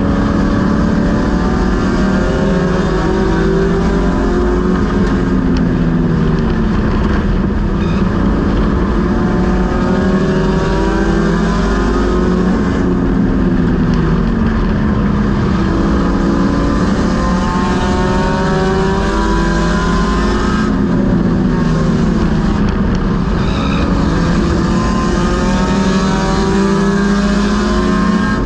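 Race car engine heard from inside the cockpit, running hard under racing load, its pitch climbing as it accelerates and dropping back as it lifts, over and over around the oval.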